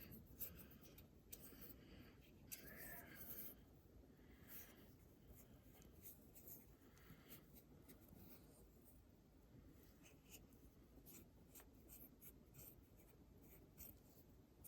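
Faint, irregular scratching and tiny clicks of a small tool picking and scraping packed grime out of a digital watch's button.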